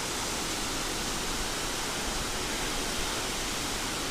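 Waterfall pouring down, a steady even rush of water.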